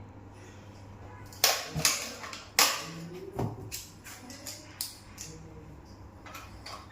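Irregular sharp clicks and knocks, like handling or tapping, the two loudest about a second and a half in and a second later, over a low steady hum.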